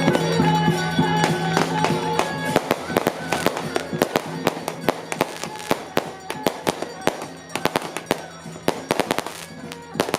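Loud procession music on pitched wind instruments, fading out about two and a half seconds in, as a string of firecrackers takes over with rapid, irregular cracks and bangs.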